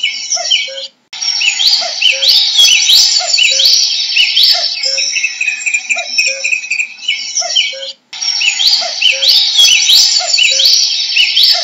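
Common cuckoo calling its repeated two-note 'cuck-oo', a higher note dropping to a lower one, over a busy chorus of other songbirds' quick rising whistles. The sound cuts out briefly twice, about a second in and again near the end.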